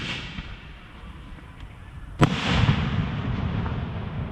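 Aerial firework shell: a sharp crack of the launch at the start, then a loud bang as a shell bursts about two seconds in, followed by a long rumbling echo.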